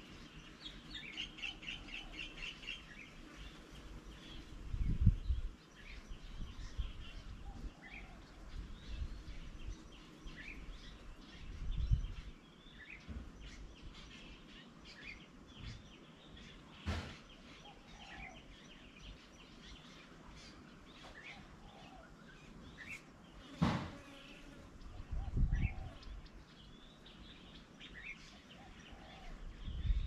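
Small wild birds chirping and calling, with a quick run of about five high notes a second near the start and scattered single chirps. Several low rumbles and two sharp clicks are the loudest moments.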